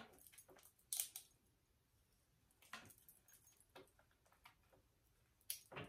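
Near silence with a few faint handling clicks and rustles as a curling iron is worked through hair, the clearest about a second in and near the end.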